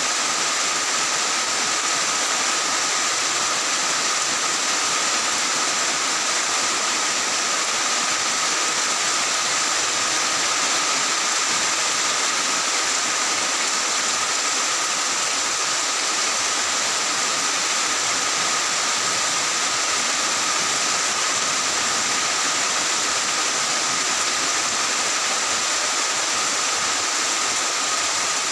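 Heavy rain falling steadily on tiled roofs, an even rushing hiss that does not let up. Two faint, steady high tones run through it unchanged.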